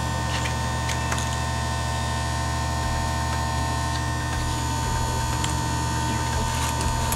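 Steady low electrical hum with a faint high tone, and a few light clicks as the chain sharpener's clamp and angle base are handled.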